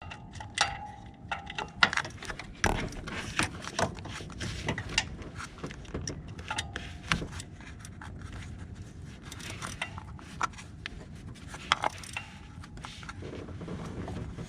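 Hand tools and metal parts clinking and clicking under the hood during work on a serpentine belt tensioner, a run of irregular sharp clicks and knocks with a brief metallic ring near the start and again about six seconds in.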